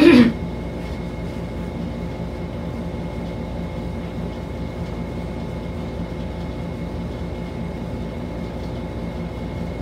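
Steady low mechanical hum with a few faint held tones, the kind of constant room machinery noise an air conditioner or appliance makes.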